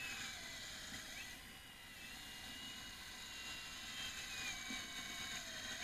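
Radio-controlled scale Liebherr L576 wheel loader's electric drive whining as it drives, the high whine dipping in pitch a couple of times and settling lower for a while before rising again near the end.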